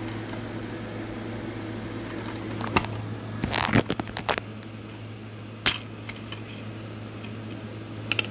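Plastic DVD case being handled and opened: a cluster of clicks and rattles a few seconds in, a single sharp click a little later, and more clicks near the end as the disc is pressed off its centre hub. A steady low hum runs underneath.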